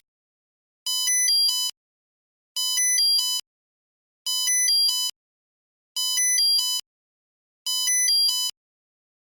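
Old mobile phone's electronic beep ringtone: a quick run of several buzzy beeps at changing pitches, under a second long, repeated five times with short silences between.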